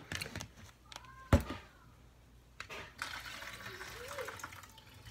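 Hot water being poured off a bowl of microwaved noodles, a steady pour over the last two seconds or so. A sharp knock about a second and a half in.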